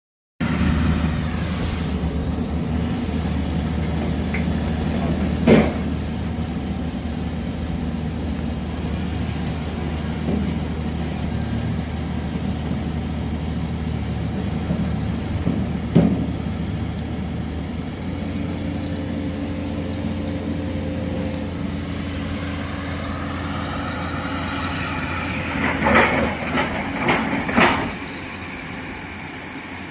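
Engine of a piling rig running steadily, its note shifting about halfway through, with a sharp knock twice and a quick run of knocks near the end.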